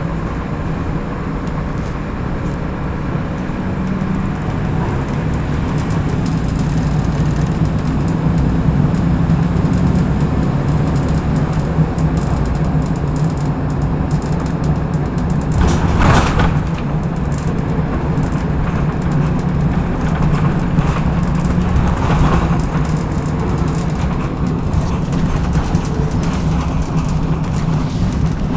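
Volvo B10BLE single-deck bus heard from on board while driving: steady engine drone with road noise. A brief, loud burst of noise cuts through about sixteen seconds in, and a weaker one near twenty-two seconds.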